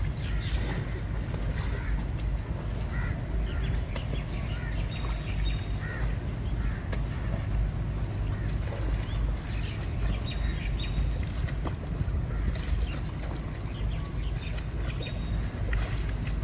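A broom used as a paddle splashing and stirring knee-deep floodwater as an inflatable paddling pool is rowed along, over a steady rumble of wind on the microphone. Short high chirps come and go throughout.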